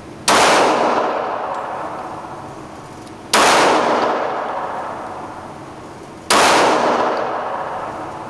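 Three single shots from a Glock pistol in .40 S&W, evenly spaced about three seconds apart, each followed by a long echo that dies away.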